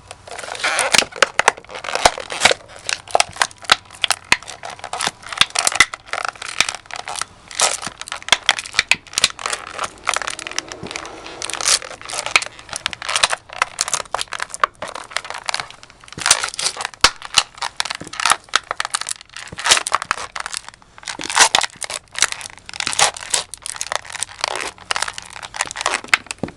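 An empty snack jar being stomped and crushed under Chippewa firefighter boots: a dense, uneven run of sharp cracks, crunches and crackles, with short pauses between bursts.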